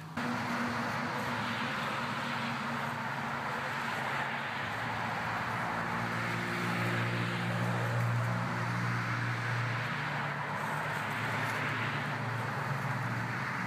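Wood chipper running steadily: a constant engine hum under a hissing grind.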